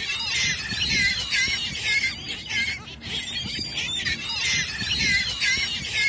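A flock of gulls calling over one another, a constant jumble of short rising-and-falling cries as they crowd in for food.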